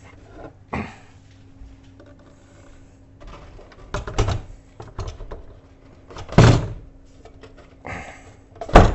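Granitek synthetic-stone kitchen sink knocking and thudding against the countertop as it is lowered and shifted into the cutout for a test fit. A handful of separate knocks, the loudest two about six and a half seconds in and just before the end.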